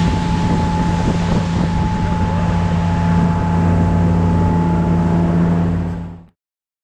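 Motorboat engine running at a steady speed, with wind buffeting the microphone. The sound cuts off abruptly a little after six seconds in.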